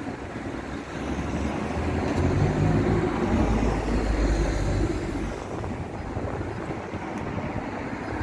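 Street traffic: a heavy vehicle passes close by, its low engine rumble swelling over a few seconds and then fading.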